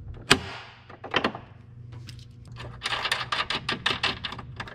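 Step-bar mounting hardware being fastened: one sharp metal clank, a couple of lighter knocks, then from about three seconds in a quick, even run of metal clicks, about seven a second.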